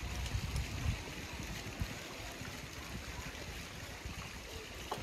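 Small fountain jets splashing into a pond, a steady trickle of water, with low rumbles of wind on the microphone in the first second.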